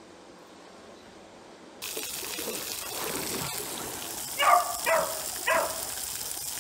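Faint room tone, then from about two seconds in a steady hiss of water spraying from a splash-pad sprinkler hoop. Past the middle a dog barks three times in quick succession.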